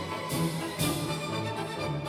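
Orchestral music with strings played back through a small desktop studio monitor and recorded in the room, with two crash-like hits in the first second.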